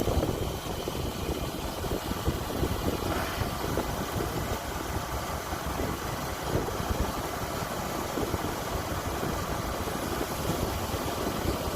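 Kubota DC-105X combine harvester running steadily at work in a rice field: its diesel engine and harvesting machinery make an even, continuous drone.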